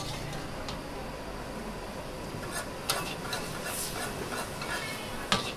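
A steel spatula clanking and scraping against a wok as morning glory sizzles in a stir-fry, the knocks starting about halfway through over a steady background hum.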